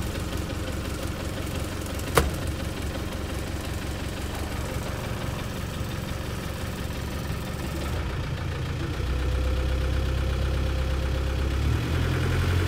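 A 1992 Land Rover Defender 90's four-cylinder turbo diesel idling, heard from inside the cab. There is a single sharp click about two seconds in, and the low hum grows louder about nine seconds in.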